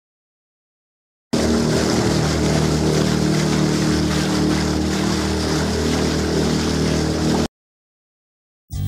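Motorboat under way, its engine's steady drone under the rush and splash of water thrown off the hull. It cuts off suddenly after about six seconds, and music begins near the end.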